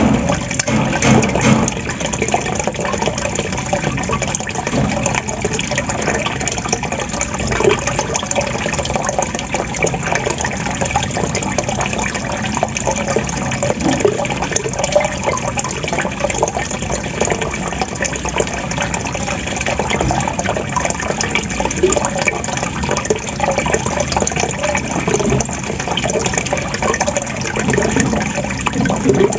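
Running water gurgling and splashing steadily.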